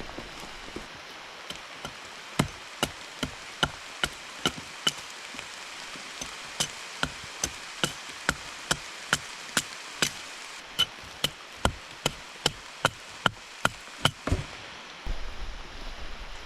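Steady chopping on wood: sharp knocks about two or three a second, starting about a second and a half in and stopping near the end.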